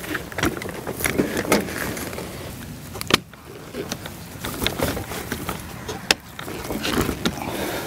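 A folding fishing chair's metal legs and frame clanking and clicking against a stainless-steel fishing platform as the chair is set on it and its front legs are seated in a chair holder. It is a scattered series of sharp knocks, the sharpest about three and six seconds in.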